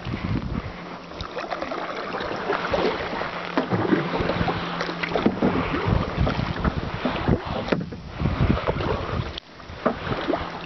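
Kayak paddles dipping and splashing in the water in irregular strokes, with wind buffeting the microphone at times.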